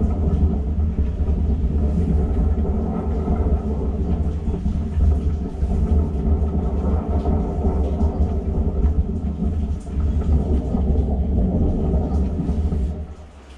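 High-pressure sewer jetter running a Warthog rotating root-cutting nozzle through the drain line: a loud, steady, deep rumble that cuts off near the end as the water is shut down.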